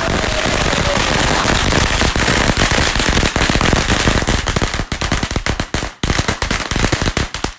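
A hanging string of firecrackers going off in a rapid, continuous crackle of bangs. Over the last couple of seconds it thins to separate sharp cracks, then cuts off suddenly as the string burns out.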